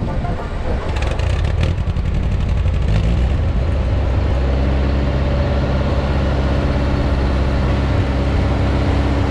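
1949 Ford 8N tractor's four-cylinder flathead engine running. It is rough and uneven for the first few seconds, then settles into a steady idle.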